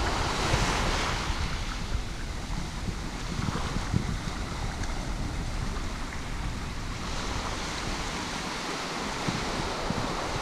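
Small ocean waves washing up onto a sandy beach, with wind buffeting the microphone. The wash swells about a second in and again from about seven seconds in.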